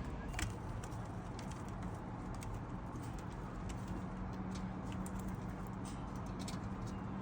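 Homing pigeons cooing low in a loft, with scattered light clicks.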